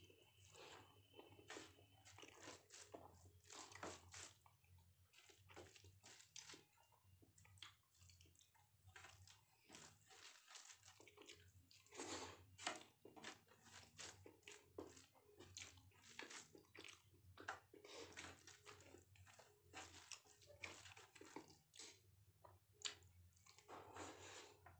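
Faint chewing and wet mouth sounds of a man eating rice and dal by hand: a continuous string of soft clicks and smacks.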